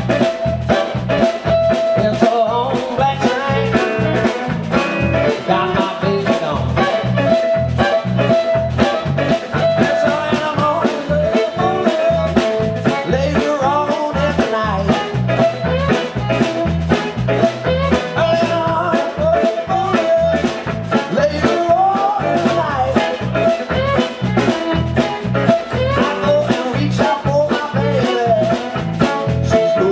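Live band of fiddle, acoustic guitar and drums playing an up-tempo blues number with a steady beat.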